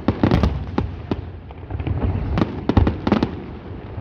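Fireworks display: a volley of aerial shell bursts, sharp bangs that come in quick clusters, several close together near the start and another run about two and a half seconds in.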